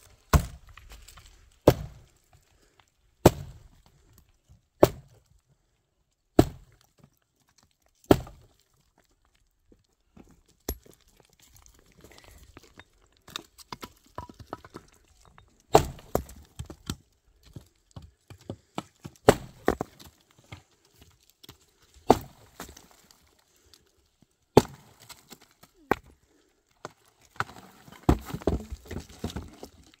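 An axe chopping into a dry, dead tree stump, with the wood cracking as it splinters. At first there are heavy strikes about every one and a half seconds. After that come lighter irregular knocks, with a heavy strike every few seconds.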